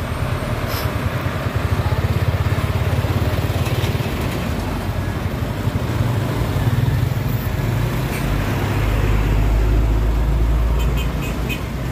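Diesel engine of a light cargo truck running at low revs as it creeps through a turn close by, a steady low rumble with a fast pulsing beat that grows deeper and stronger about nine seconds in.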